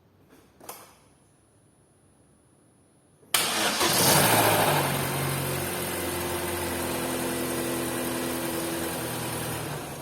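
Chevrolet Cruze 1.8 Ecotec four-cylinder engine being started: it cranks and catches suddenly about a third of the way in, is loudest for the first second or so, then settles into a steady idle. On a start after the car has sat, this engine knocks for about two seconds, which the mechanic traces to faulty VVT cam-phaser pulleys.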